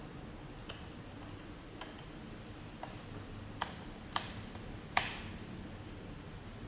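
Light clicks and taps of a screwdriver and small screws while the bottom-cover screws of a laptop are taken out, about six scattered clicks with the sharpest tap about five seconds in.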